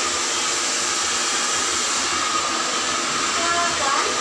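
Handheld electric hair dryer blowing steadily, a continuous rushing hiss with a steady high whine, as hair is blow-dried with a round brush.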